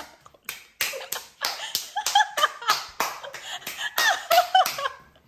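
A man vocalizing a dance beat with his mouth while dancing: a quick, even string of sharp smacks and clicks, about three to four a second, mixed with short yelping vocal sounds.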